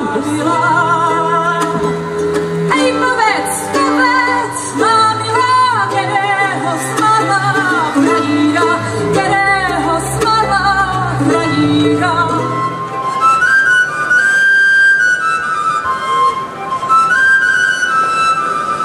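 Live folk music: a woman singing with vibrato over string accompaniment that includes mandolin and violin, with a bass line underneath. About two-thirds of the way through the bass drops out and long, steady high notes are held.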